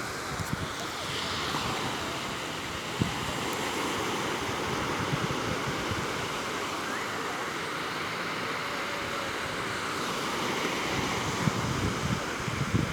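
Sea waves washing on the shore in a steady rush of surf, with a few low thumps near the end.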